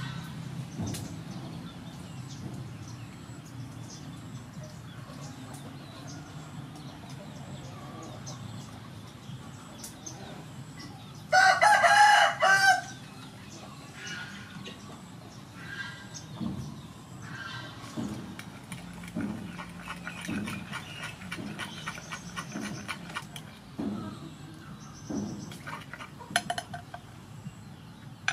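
A rooster crows once, loud, about halfway through. A run of soft, irregular knocks follows in the second half.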